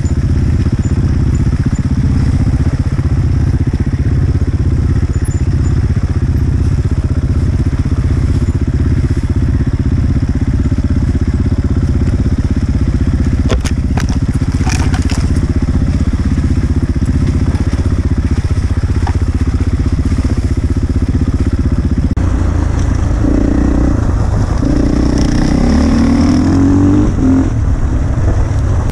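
Enduro dirt bike engine running steadily at low speed along a muddy trail, with a few sharp knocks about halfway through. A few seconds before the end the engine revs up, its pitch rising as the bike speeds up.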